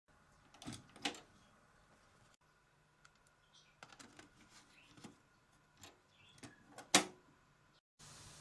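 Scattered sharp clicks and knocks, about seven of them at uneven intervals, the loudest about seven seconds in, like equipment being handled or buttons pressed; a faint hiss follows a brief dropout near the end.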